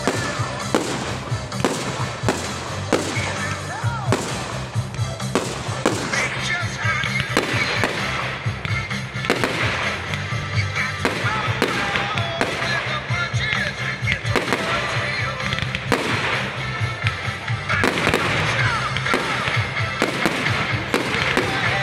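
Fireworks display: aerial shells exploding in rapid, repeated bangs, with crackling between them.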